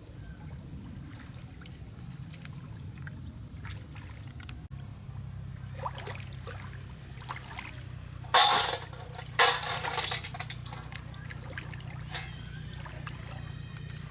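Water splashing and sloshing, with two loud splashes about eight and nine seconds in, over a steady low hum.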